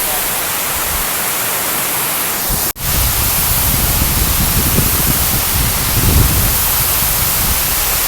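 Steady roar of falling water from a large waterfall, a loud even hiss. About three seconds in it cuts out for an instant, and afterwards a low rumble rises and falls under the roar.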